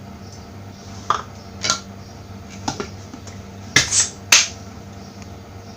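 Several sharp clicks and knocks of kitchenware being handled, the loudest three close together a little past the middle, over a steady low hum. No grinding motor is heard.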